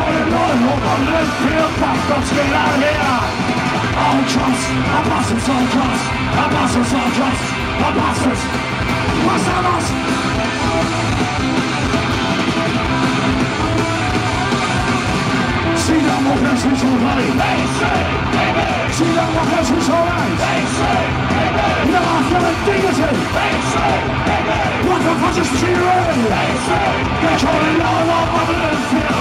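Punk rock band playing live through a PA: electric guitars, bass and drums with shouted vocals.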